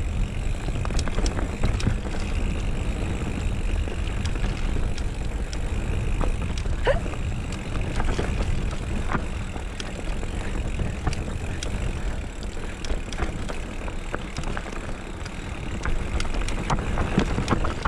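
Mountain bike rolling fast down a dirt forest trail: a steady rumble of wind on the microphone and tyres on dirt, with frequent scattered clicks and rattles from the bike.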